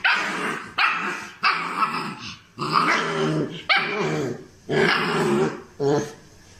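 A dog growling and grumbling in about seven rough, drawn-out bursts with short pauses between them.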